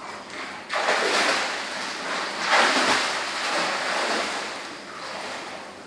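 Swimming-pool water splashing and surging as a person moves through it. It starts suddenly about a second in, is loudest halfway through, then dies away.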